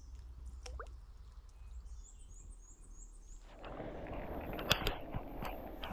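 Quiet stream-side outdoor ambience, with a bird's quick run of about six short high chirps around two seconds in. From about three and a half seconds a louder rushing noise of wind and water sets in, with a few sharp clicks.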